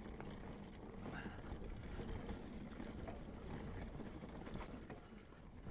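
Mountain bike being ridden over rough ground: steady rattling and clicking of the bike, with wind rumble on the microphone.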